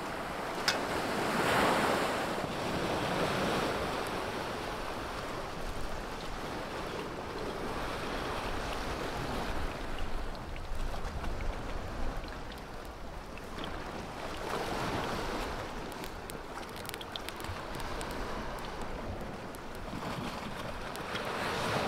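Sea waves breaking and washing over a rocky, pebbly shore, swelling loudest about two seconds in and again near the end, with wind buffeting the microphone.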